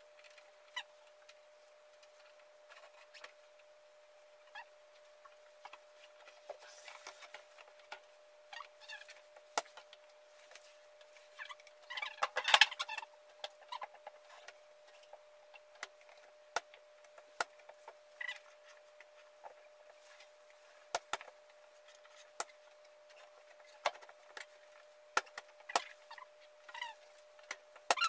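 Scattered knocks, clicks, scrapes and short squeaks as an under-counter refrigerator is handled and pushed into its cabinet opening, with a louder clatter about twelve seconds in, over a faint steady hum.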